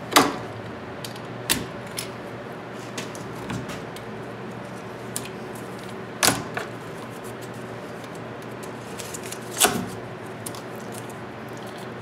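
Stripping the outer jacket off yellow 12-gauge NM (Romex) cable with a utility knife and pliers: a handful of sharp clicks and scrapes of the tools and plastic sheathing, the loudest at the very start, about six seconds in and near ten seconds. A steady low hum runs underneath.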